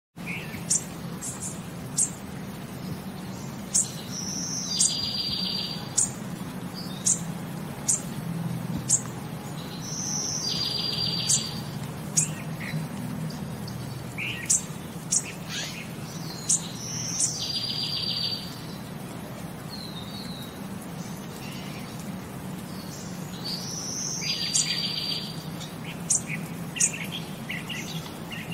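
Small songbirds chirping: sharp high chirps every second or so, with a short, rapid, high trill coming back about every six seconds, over a low steady hum.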